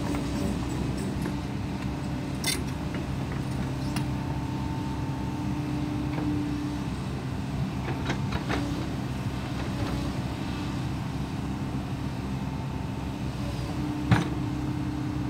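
Compact tracked excavator's diesel engine running steadily while the hydraulics work the boom, arm and bucket and swing the upper body. A few sharp metal clanks, the loudest near the end.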